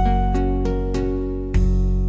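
Background music: a gentle plucked-string melody over sustained bass notes, several notes in quick succession.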